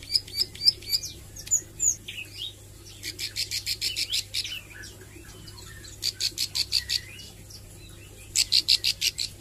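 Ciblek sawah, a small prinia, singing in short bursts of rapid, sharp chirps, several runs of about a second each with brief pauses between; the loudest run comes near the end. A caged bird practising its song and quick 'nembak' bursts.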